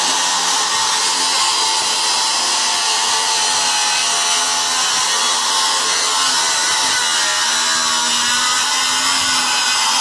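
Handheld electric power tool running steadily under load as it cuts along a wooden board.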